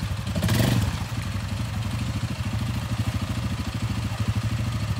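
ATV engine idling steadily with a fast, even firing pulse. A brief rush of noise fills the first second.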